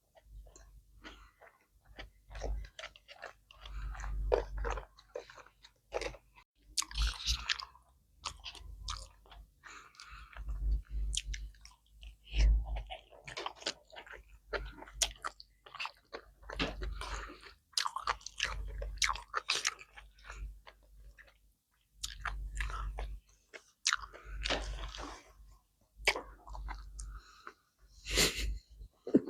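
Close-miked chewing of sushi and seaweed salad: irregular wet mouth clicks and smacks with occasional crunches, in clusters separated by brief pauses.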